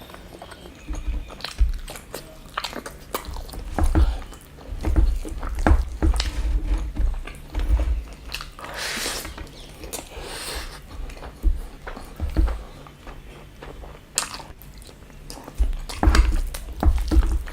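Close-miked eating sounds: irregular chewing, biting and wet mouth clicks and smacks while eating rice and chicken curry, with a longer noisy stretch about nine to ten seconds in.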